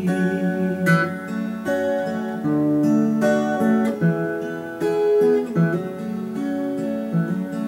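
Acoustic guitar playing the song's instrumental ending, a run of single picked notes that ring on over one another.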